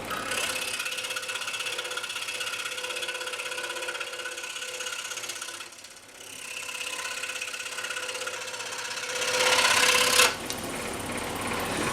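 Scroll saw running, its blade stroking rapidly as it cuts through a maple block. The sound dips briefly about halfway through, grows louder a little before the end, then drops off suddenly.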